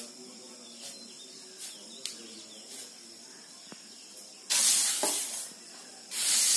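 Mustard seeds hissing and rattling across a bamboo winnowing tray as they are worked by hand: a few faint ticks at first, then two loud swishing bursts of about a second each, the first about halfway through and the second near the end.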